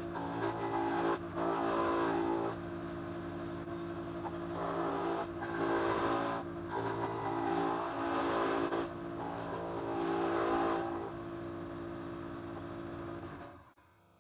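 Spindle moulder running with a rebating cutter: a steady motor whine, with the harsher noise of the cutter biting into the wood coming and going as the curved frame is fed past it in light passes. The sound cuts off suddenly near the end.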